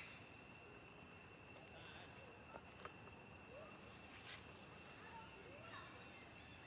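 Near silence outdoors: a faint, steady, high insect drone, with a few faint short chirps scattered through it.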